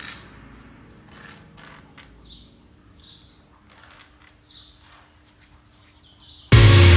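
Quiet background with a few faint, short bird chirps and some light taps. Loud electronic music cuts in suddenly near the end.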